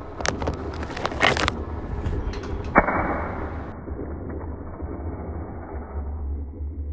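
Toy RC gel-ball tank firing soft water-bead pellets from its turret: a sharp snap, then a short rapid cluster of snaps about a second in, and one more sharp snap near three seconds. A steady low hum runs underneath.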